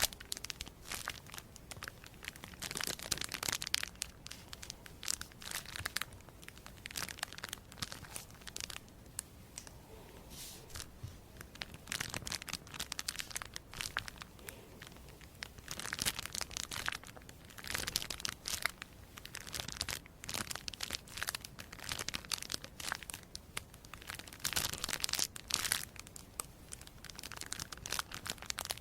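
Crisp crinkling and crackling, like material being crumpled or torn, in irregular clusters of dense crackles with several louder bursts.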